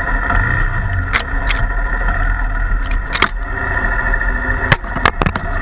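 Honda XR250 Tornado's single-cylinder four-stroke engine running steadily, with a handful of sharp knocks or clicks scattered through it.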